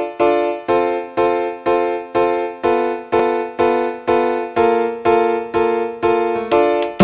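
Background music: an electric piano plays repeated chords about twice a second, each fading before the next. Sharper plucked notes join near the end.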